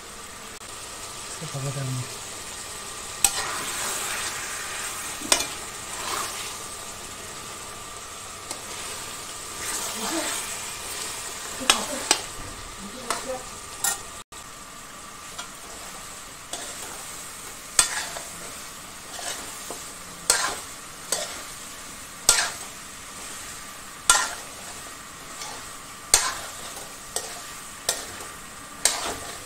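Mutton and masala sizzling as they are dry-fried (bhuna) in a metal kadai on a gas stove before water goes in, with a spoon stirring and scraping, knocking sharply against the pan, more often in the second half.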